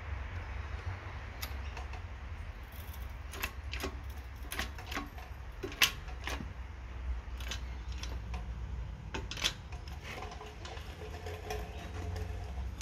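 Hydraulic shop press pressing a new U-joint bearing cap into a tailshaft yoke: irregular sharp clicks and ticks from the press and the joint as the cap is driven in, over a steady low hum.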